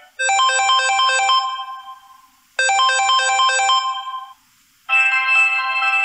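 Samsung Galaxy A41 preset ringtone: a short phrase of quick, bright notes played twice with a brief pause between. A different preset ringtone with fuller, held notes starts about five seconds in.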